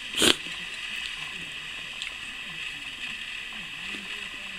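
A metal spoon scrapes against a plate once, briefly, just after the start as a spoonful of mapo tofu and rice is scooped up. A steady hiss continues underneath.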